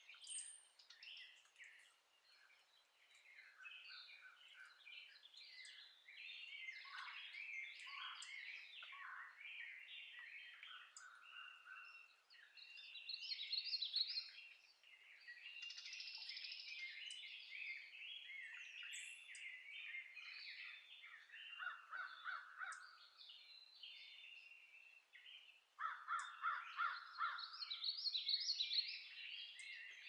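A dawn chorus of many songbirds singing at once, steady throughout. Twice in the second half, groups of harsh, cawing calls cut in below the song, the later group the loudest.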